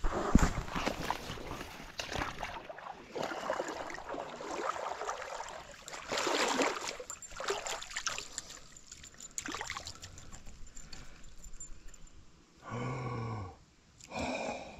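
Shallow creek water splashing and sloshing in irregular bursts around a person's legs as he wades. Near the end there is a short wordless vocal sound.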